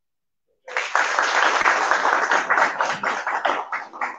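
A small group applauding. The clapping starts about half a second in and thins into scattered claps near the end.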